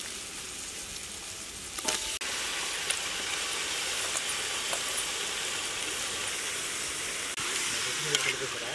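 Raw chicken pieces sizzling in hot oil with fried onions in a large aluminium pot. The sizzle grows louder about two seconds in, and there are a few light clicks near the start and again near the end.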